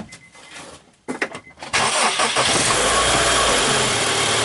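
After a few light clicks, the 2003 Honda Civic's engine cranks and starts abruptly about two seconds in, then runs steadily at idle with a harsh grinding noise, which the owner traces to a bad alternator bearing.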